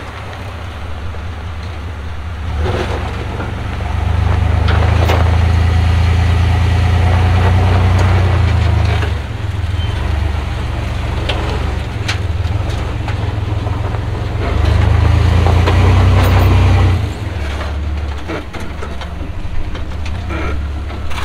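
Off-road vehicle's engine running while driving over a trail, with a deep rumble. It grows louder twice, for about five seconds and then about two seconds, as it pulls harder. Scattered knocks sound over it.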